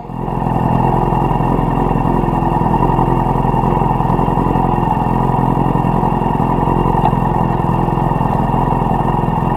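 Yamaha R6 sportbike's inline-four engine idling steadily, heard from the rider's seat.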